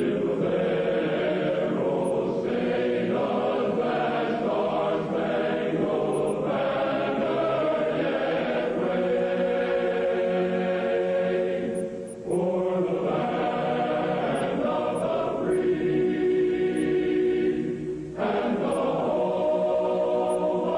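A choir singing slow, sustained chords, with two brief pauses.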